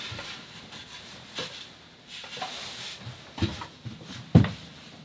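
Mahogany trim frame handled and set against a cabin bulkhead: a few light wooden knocks, the sharpest about four seconds in, with soft rubbing between them.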